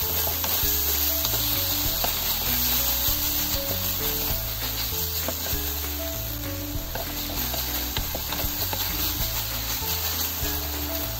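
Pork slices and long green onion sizzling in an oiled frying pan as they are stirred and turned with a wooden spatula. Background music with a stepping bass line plays under it.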